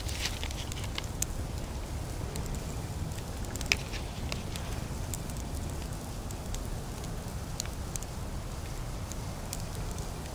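Wood campfire crackling, with scattered sharp pops over a steady low rumble.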